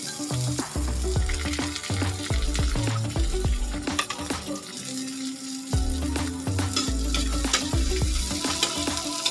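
Sliced onion, ginger and chili sautéing in a metal wok, sizzling steadily while a metal ladle stirs them, with many short clacks and scrapes of the ladle against the pan.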